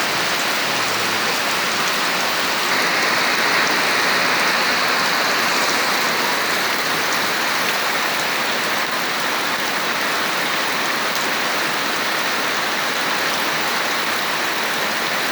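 Heavy tropical downpour: steady dense hiss of rain pouring down and drumming on surfaces, slightly heavier a few seconds in.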